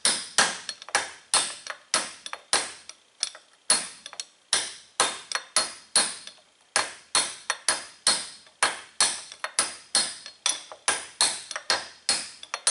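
Hammer tapping a steel punch against the lip of a steel tapered bearing race in an aluminum wheel hub. The blows are light, sharp metal-on-metal taps with a short ring, steady at about two to three a second. The race has been shrunk with a weld bead so it drives out with little force.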